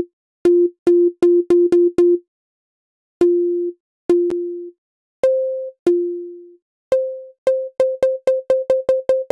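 Zebralette 3 software synth playing a short sine-based pluck, each note opening with a sharp click-like transient that comes from a scribbled random waveform swept in by a tight MSEG envelope on the curve morph. Quick repeated notes on one pitch, a few held a little longer, then from about seven seconds in a faster run of repeats on a higher note.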